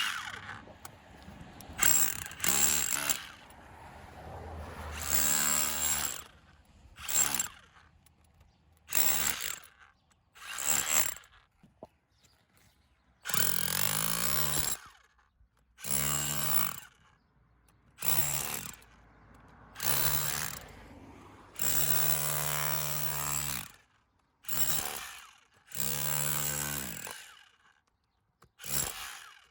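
Milwaukee M18 FUEL SDS-plus rotary hammer run in about a dozen short bursts of one to two seconds each. The motor spins up at each trigger pull and stops between bursts.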